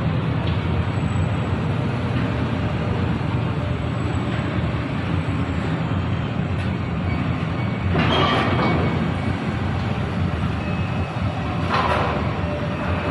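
Steady low machinery rumble of a container crane at work as it lowers a shipping container onto a truck trailer, with two short noisy bursts about eight and twelve seconds in.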